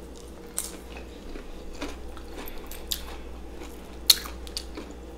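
Close-miked chewing of a mouthful of deep-fried battered seafood, with scattered crisp crunches and one sharper crunch near the end, over a faint low hum.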